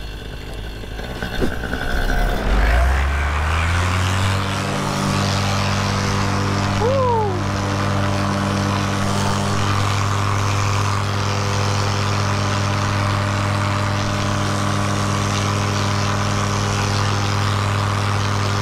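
Paramotor engine driving a repaired carbon fiber propeller, throttled up from low power to full power over about two seconds, then running steadily at full throttle through the takeoff and climb.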